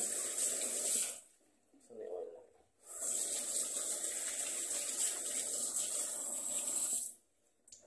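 Kitchen tap running as hands are washed under it: the water runs for about the first second, stops, then runs again steadily for about four seconds and cuts off suddenly near the end.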